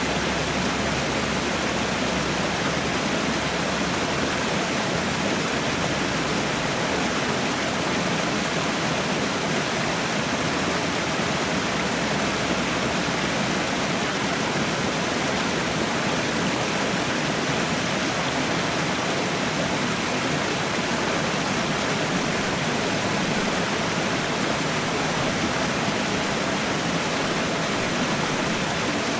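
Waterfall: a steady, unbroken rush of falling water, even and unchanging, with its sound spread from low to very high pitches.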